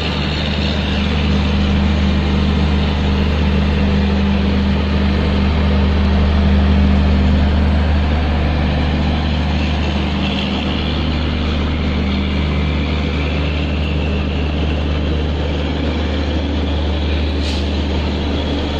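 A consist of WAG-7 electric locomotives standing together, giving a steady, loud running drone over a deep hum, with no change in pitch. A single short click sounds near the end.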